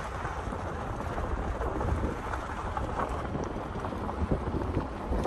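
Car driving on a gravel road, heard from inside: a steady low rumble with a dense crackle of tyres on loose gravel.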